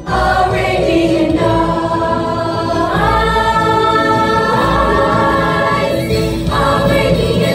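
Children's chorus singing a musical-theatre number together over backing music, stepping up to a higher held note about three seconds in.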